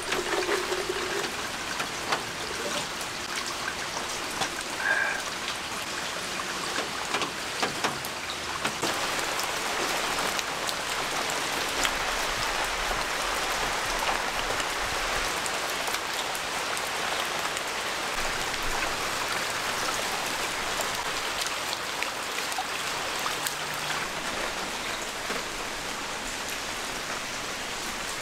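Steady rain falling, with many separate drops ticking.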